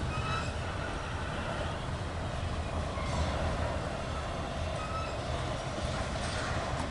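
Double-stack intermodal freight train rolling across a bridge: a steady rumble from the container cars going by.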